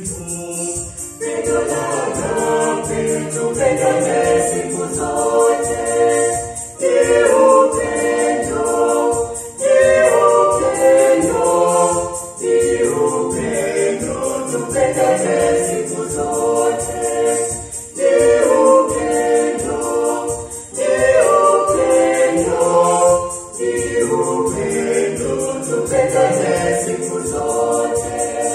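Small mixed choir singing a Swahili hymn in four-part harmony (soprano, alto, tenor, bass), accompanied by an electronic keyboard. The singing comes in phrases a few seconds long, with brief breaks between them.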